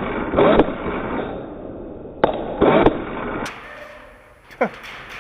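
Airsoft rifle firing a handful of single shots: sharp pops at irregular intervals, roughly a second apart, each followed by a short noisy tail.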